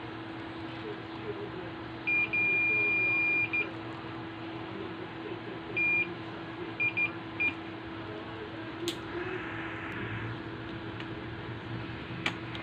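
Digital multimeter's continuity beeper sounding as its probes touch points on an LCD TV main board. There are a few short beeps and one long beep of over a second, each signalling low resistance between the probed points. A steady low hum runs underneath.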